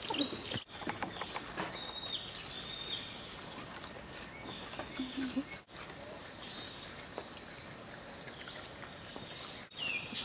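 Outdoor forest ambience: a steady faint hiss, a few soft knocks in the first second or two, and a short thin high call about two to three seconds in.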